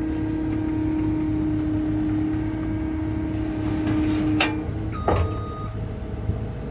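Compact track loader's diesel engine running steadily with a constant whine. About four seconds in, the whine stops and two sharp metallic clanks ring out less than a second apart.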